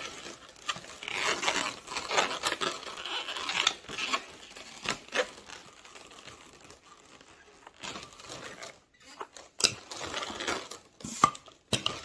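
Inflated latex modelling balloons rubbing and squeaking against each other as a bundle of balloon stems is handled and lined up, with a few sharp clicks near the end.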